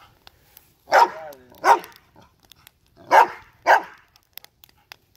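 Dog barking at a fire: four loud barks in two pairs, the second pair about two seconds after the first.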